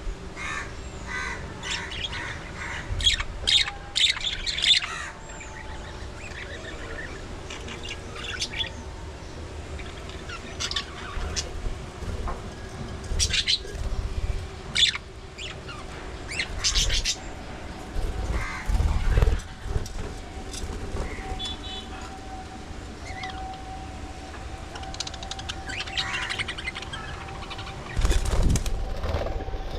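A colony of budgerigars chirping, many short calls overlapping. A few bursts of wing flapping come about two-thirds of the way in and again near the end.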